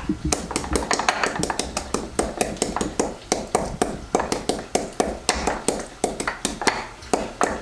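Rapid, steady pounding, about four or five sharp strikes a second, as an ingredient is beaten to break it up.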